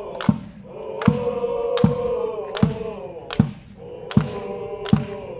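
Football supporters chanting together in held, sung notes over a bass drum struck steadily, about every three-quarters of a second.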